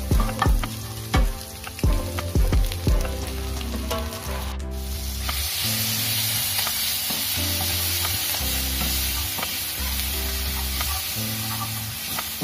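Fried rice sizzling in a pan while a spatula stirs it, knocking and scraping against the pan many times over the first few seconds. After a short break, a steady sizzle carries on.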